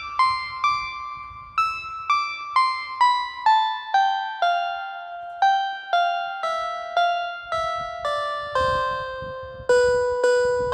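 Instrumental background music: a slow melody of single piano notes, about two a second, each struck and left to ring and fade.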